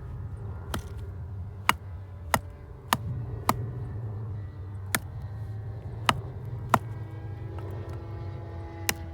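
Burning firewood crackling in a campfire: sharp, irregular pops about every half second to a second, over a steady low hum.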